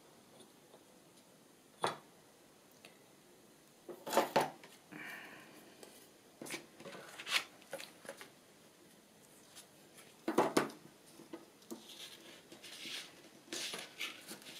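Paper and craft pieces being handled on a work table: scattered rustles and light clicks and taps every second or two, with louder rustles about four and ten seconds in.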